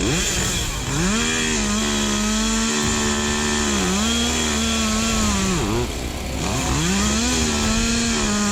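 Chainsaw engine revving. Its pitch climbs to full throttle and holds, then drops briefly and climbs back up about three times.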